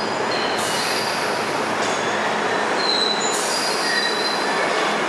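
London Underground 1973 stock Piccadilly line train running into the platform and slowing, a steady loud rumble of wheels on rail. Its wheels squeal in thin high tones through the second half.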